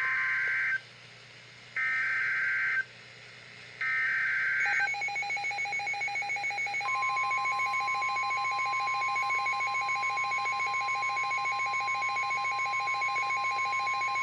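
Emergency Alert System broadcast on NOAA Weather Radio. It opens with the three one-second bursts of the SAME digital header, screechy data tones with short gaps between them. About five seconds in, a fast-pulsing alert tone comes in, and about two seconds later the steady, high warning alarm tone joins it; together they announce a special marine warning.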